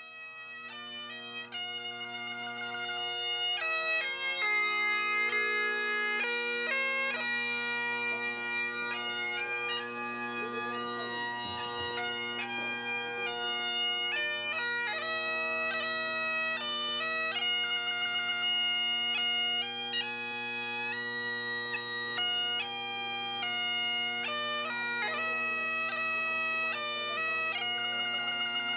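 Bagpipes playing a tune over their steady drones. The melody moves in quick ornamented notes with short trills, and it swells in over the first few seconds.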